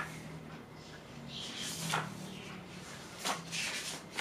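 Magazine pages being turned and handled, with a few soft papery rustles and slides.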